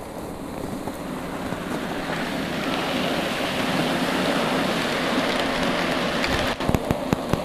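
G-scale model diesel locomotives running on garden track while the plow car pushes through snow: a steady hiss that grows louder as the train nears, with a few sharp clicks near the end.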